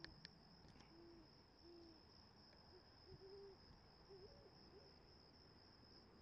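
Great horned owl giving a series of low hoots, about six over the first five seconds, the last ones wavering, over a steady high cricket trill.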